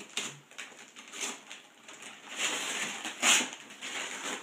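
Wrapping paper being torn and rustled off a gift box by hand, in a run of crackling rips, the loudest about three seconds in.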